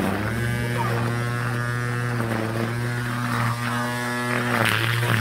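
Electric grass trimmer running with a steady buzzing hum. The pitch shifts slightly about four and a half seconds in.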